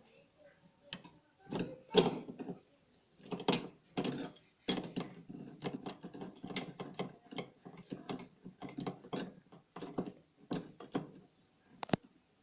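Tools and metal parts of a washing machine's drum and gearbox assembly clicking and knocking during reassembly, a quick irregular clatter of small strikes that thickens about five seconds in and thins out near the end.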